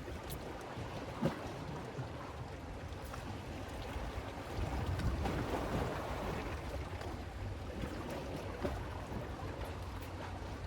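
Wind buffeting the microphone over seawater washing against the breakwater, with a broad swell of water noise about five seconds in.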